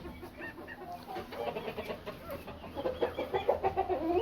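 A flock of chickens clucking, many short calls overlapping and growing busier about halfway through.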